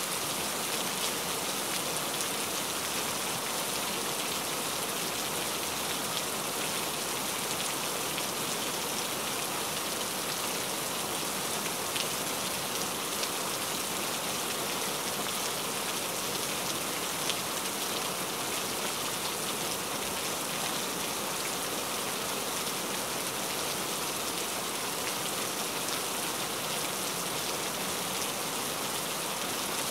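Steady rain falling: an even hiss with the odd slightly louder drop standing out.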